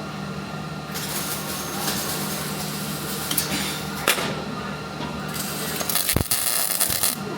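Welding arc crackling and hissing in stretches of a second or more, stopping and restarting a few times, over a steady electrical hum.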